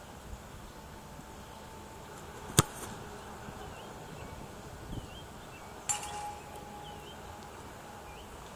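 A kicker's foot strikes a football off a kicking tee: one sharp, loud smack about two and a half seconds in. A weaker sharp clink with a short ring follows a few seconds later, over faint bird chirps and light wind.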